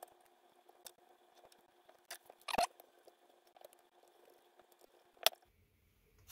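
Faint handling clicks and taps of a small hair trimmer being put back together by hand, its blade head fitted and screwed on. There is a louder rattle about two and a half seconds in and a sharp click about five seconds in.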